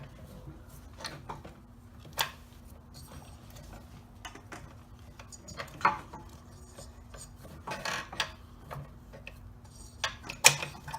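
Metal engine parts clinking and scraping as the piston is worked out of a Predator 212 engine's bore. There are scattered knocks, a longer scrape about eight seconds in, and a sharp knock near the end.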